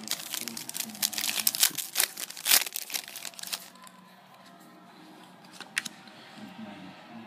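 Foil trading-card pack being torn open and its wrapper crinkled: a dense run of crackling for about the first three and a half seconds, then a few soft clicks as it quietens.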